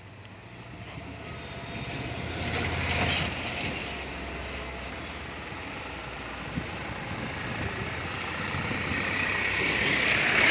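Tata Ace mini truck driving past, recorded on a phone's microphone: its engine rumble swells to a peak about three seconds in and then trails off, with a hiss from wind and traffic that rises again near the end.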